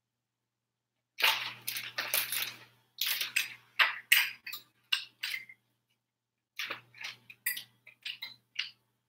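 Plastic zip-top bag crinkling as it is handled, in irregular crackly bursts starting about a second in, with a short break a little past the middle.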